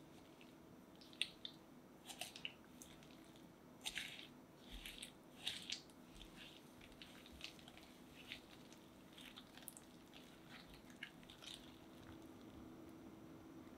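A wire whisk with red coated wires beating thick cream cheese with sugar and vanilla bean paste in a glass bowl: soft squishy clicks and taps, loudest in the first half and growing fainter and sparser as the mixture smooths out.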